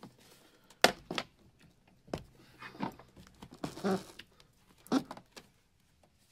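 A few sharp knocks and short rubbing noises from a taped, soaped power wire being worked through a rubber firewall grommet.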